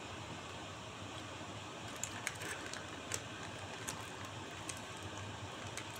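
Steady background hiss of room tone, with a few faint clicks a couple of seconds in.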